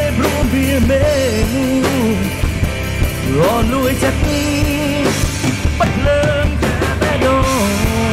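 Live rock band playing: electric guitars, bass and drum kit keep a steady beat under a lead melody that bends and wavers in pitch.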